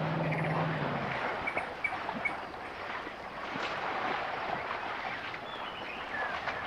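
Outdoor ambience: a steady rushing background with scattered faint bird chirps, and a low steady hum that stops about a second in.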